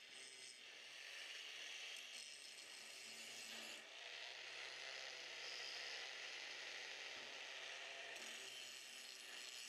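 Angle grinder with a cutoff wheel cutting through metal tubing, a faint, steady hiss.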